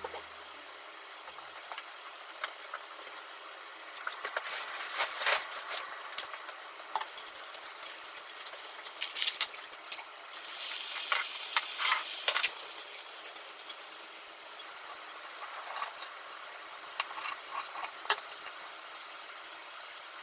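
Wooden chopsticks clicking and tapping against a frying pan and a metal bento box. About halfway through comes a loud burst of sizzling lasting about two seconds, as sesame oil and soy sauce hit a hot pan of browned fried tofu.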